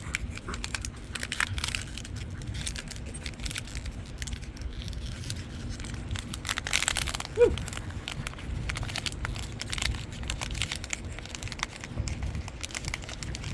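A dog chewing a sock toy, an irregular run of crackles, crunches and light clicks, the crackling likened to a crackling fire. A short squeak about halfway through.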